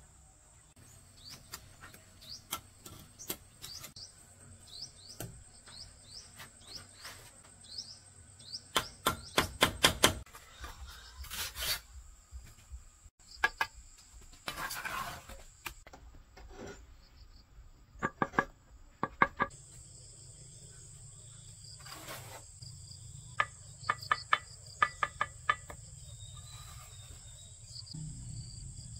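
Crickets or other insects keep up a steady high-pitched trill, with short chirps in the first several seconds. Over it come a few quick runs of sharp, slightly ringing taps, the loudest sounds here.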